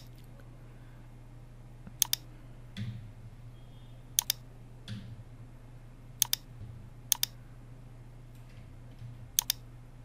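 Sharp clicks of a computer mouse and keyboard in close double pairs, six times, about every one to two seconds, with a few softer keystrokes between. A low steady hum runs underneath.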